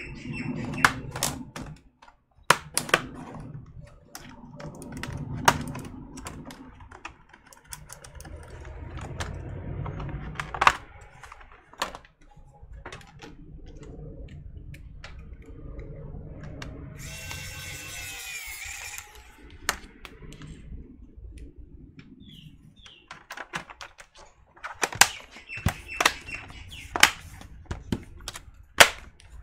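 Clicks, taps and knocks of a laptop's plastic case and screws being handled during reassembly. A small electric screwdriver whirs for about two seconds around the middle. Near the end comes a quick run of sharp clicks as the plastic bottom cover is snapped back into place.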